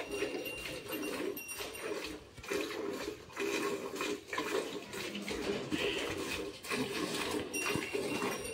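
Milk squirting from a cow's teats into a steel bucket during hand milking, in a steady rhythm of about two squirts a second.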